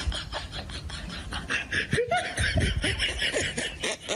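People laughing, over a steady hiss.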